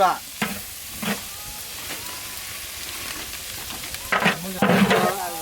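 Ground spices and chili powder sizzling in hot oil with browned onions while being stirred in a large curry pot, with a few knocks of the stirring spoon in the first second. A brief voice-like sound comes near the end.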